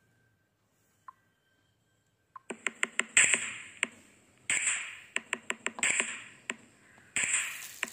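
Kitchen handling sounds from a bowl of raw chicken pieces being worked with a spoon: a quick run of sharp clicks and clinks with noisy scraping and rustling in between. They start about two and a half seconds in, after near silence.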